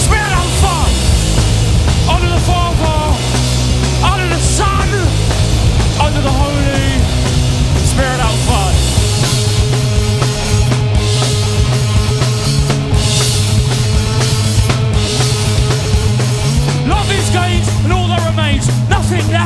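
Live post-punk rock band playing loudly: pounding drum kit and heavy bass under the rest of the band, with sliding high notes over the first eight seconds or so.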